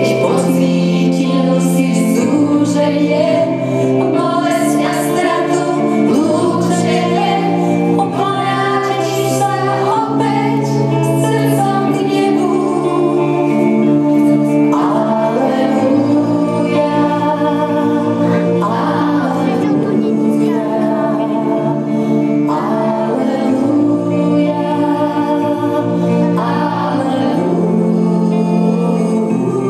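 A group of schoolgirls singing a song together into one microphone, over sustained low instrumental chords from a backing accompaniment.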